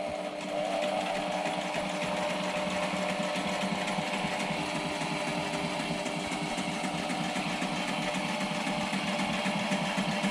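SailRite sewing machine running steadily, stitching fabric channel strips onto the edge of a flexible solar panel with a rapid, even run of needle strokes.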